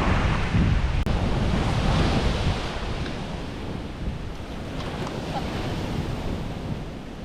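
Strong gusting wind of a typhoon buffeting the microphone, a dense rumbling rush that eases a little after about two and a half seconds. A single sharp click about a second in.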